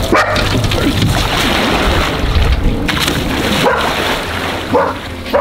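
Dog yelping and barking a few short times near the end, over a steady rush of wind on the microphone and splashing water.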